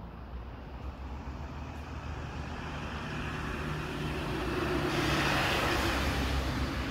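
A motor vehicle approaching, its engine hum and road noise growing steadily louder and loudest about five seconds in.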